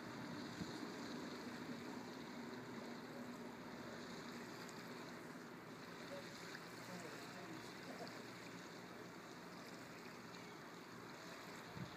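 Faint, distant diesel engine of a fishing boat running, a low hum that fades over the first few seconds, under a steady wash of water and open-air noise.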